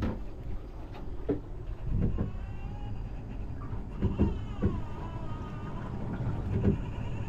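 Wind rumbling on the microphone aboard a sailboat under sail, with scattered knocks and a few faint wavering squeaks in the middle.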